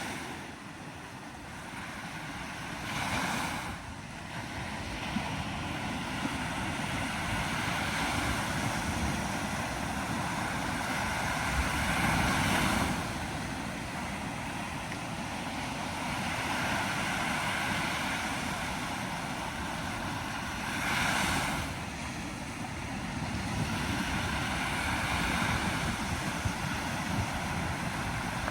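Sea waves breaking and washing on the shore, a steady surf noise that swells every few seconds as each wave comes in, with wind rumbling on the microphone.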